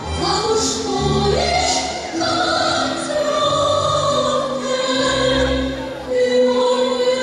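Music with voices singing slow, held notes over a recurring bass line.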